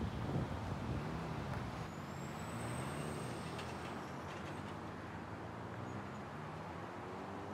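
Street traffic: a heavy road vehicle's engine running with a low hum that wavers up and down, and a thin high squeal about two to three seconds in.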